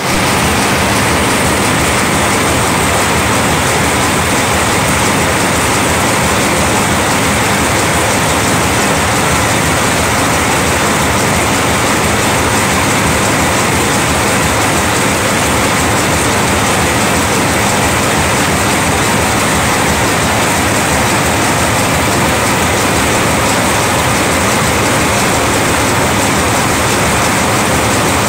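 Double-wire (Wire-O) forming machine running at high speed, a loud, steady mechanical noise with a very fast, even beat. It is forming wire loops continuously at roughly 1,100 loops a minute.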